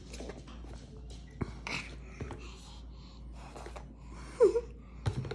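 Toddler's breathy gasps with one short falling vocal squeak near the end, between a few light knocks of a plastic suction bowl on a high-chair tray.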